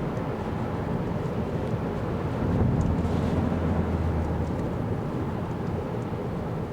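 Kia Carnival Hybrid minivan driving on a snowy road: steady low tyre and road rumble, swelling for a couple of seconds about two and a half seconds in before easing back.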